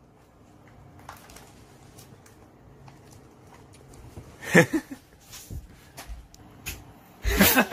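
Rustling and crackling of plastic film being pulled at and peeled off a frozen meal tray, with scattered small clicks. There are two louder bursts, one about halfway through and a longer one near the end.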